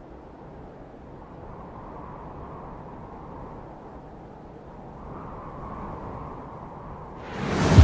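Sports car engine running steadily at a low, rumbling idle, then revved hard near the end, the exhaust suddenly becoming much louder.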